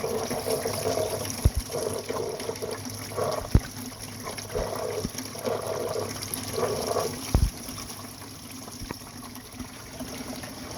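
Water running and gurgling through a homemade sluice box header fed by recirculating pump flow, over a steady low hum. Three sharp knocks are heard along the way.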